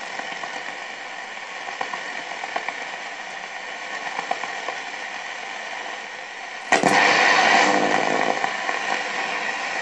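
Static hiss with light crackles from a VEF Spidola 230-1 transistor radio's speaker as it is tuned between stations. About seven seconds in, a louder station signal suddenly comes in.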